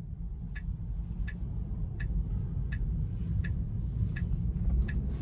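A Tesla's turn-signal indicator ticking evenly, about one and a half ticks a second, over a low road and cabin rumble that grows louder as the car moves off through a turn.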